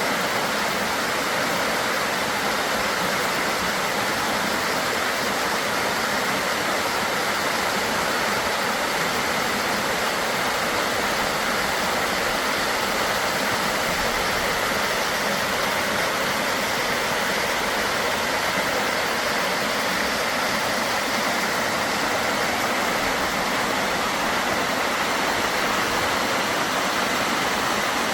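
Waterfall: falling water rushing in a steady, unbroken hiss that stays the same throughout.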